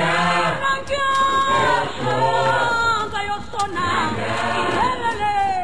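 Choir singing: several voices together, with low held notes under the melody.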